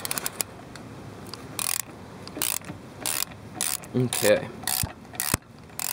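Ratchet and socket clicking as the wheel cylinder's mounting bolts are worked loose, the bolts having just broken free: a fast run of clicks at the start, then short separate bursts of ratcheting every half second or so.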